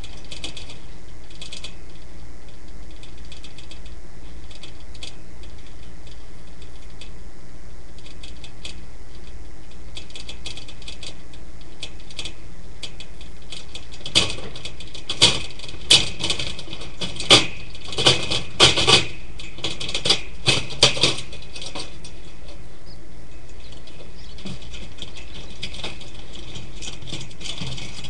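A string of short, irregular clicks and rustles over a steady hiss, thickening into a louder cluster of sharper clicks in the middle.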